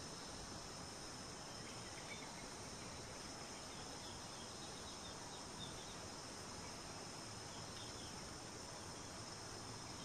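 Faint outdoor ambience dominated by a steady high-pitched insect drone, with a few faint high chirps over it.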